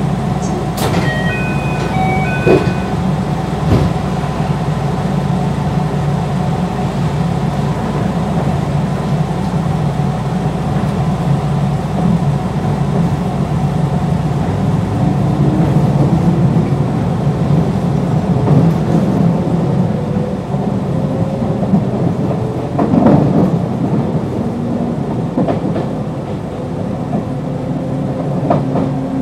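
JR West 221 series electric train with field-added excitation control, heard on board as it pulls out of a station. A few short electronic beeps near the start, then a steady low hum. From about halfway on, the traction motors' whine rises slowly in pitch as the train accelerates.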